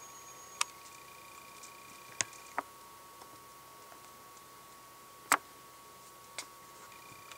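Sharp, irregular clicks and pops, about five of them, the loudest a little past the middle, from the airlock and blow-off hose of a glass carboy of stout in vigorous primary fermentation as CO2 escapes.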